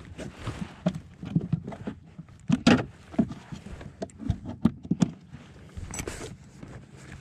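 Irregular knocks, clicks and thumps of a small largemouth bass being handled on a plastic measuring board aboard a plastic kayak, the loudest cluster a little under halfway through.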